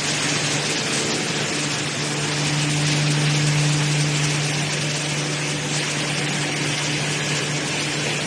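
Industrial wood-processing machine running steadily: a constant low motor hum under a dense hiss of wood material being broken up.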